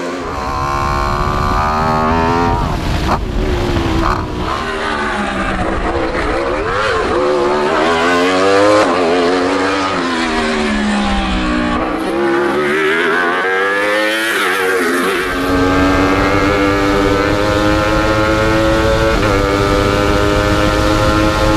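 Wolf GB08 Thunder hillclimb prototype's 1150 cc engine at racing revs, its note swinging repeatedly up and down in pitch as the car accelerates and slows through the bends. About two-thirds through it turns steadier and slowly rising in pitch with a low rumble, heard from on board the car under acceleration.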